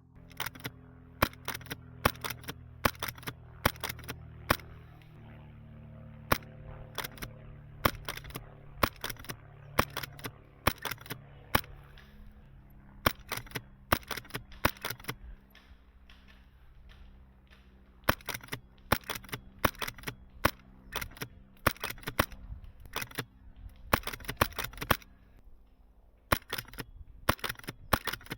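Airsoft gun firing on semi-auto: sharp cracking shots, one at a time or in quick runs of two to four, with a pause of about two seconds midway.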